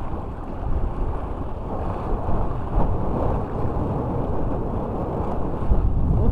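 Wind buffeting the microphone over the wash of small sea waves, a steady loud rumble and hiss with no clear tones.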